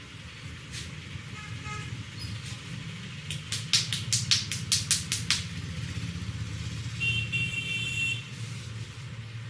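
A quick run of about ten sharp slaps, roughly five a second, from hands chopping and patting on the head during a head massage. Under it is a steady rumble of road traffic, with horns honking briefly about a second and a half in and again about seven seconds in.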